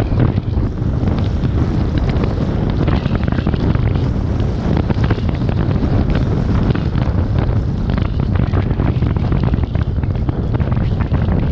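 Heavy wind buffeting the microphone: a loud, steady low rumble broken by constant irregular crackling gusts.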